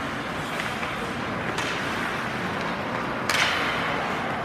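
Ice hockey play in an indoor rink: a steady hiss of rink noise with two sharp cracks from stick and puck play, a lighter one about a second and a half in and a louder one just past three seconds.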